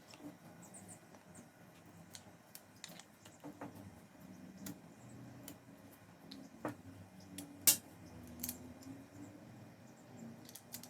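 Irregular small clicks and taps of tools and small hard parts being handled, with one sharper, louder click about seven and a half seconds in.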